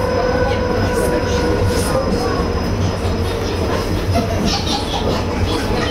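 Steady running noise of an ED4M electric suburban train heard from inside the carriage at speed: a continuous low rumble of wheels on the rails.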